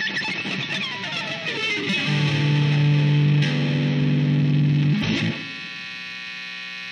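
Distorted electric guitar music: notes slide downward in pitch, then a loud low chord is held from about two seconds in, shifting once, before it drops to a quieter ringing sound about five seconds in.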